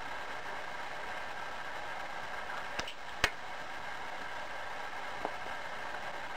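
Steady background hiss with a few short clicks, the sharpest a little over three seconds in.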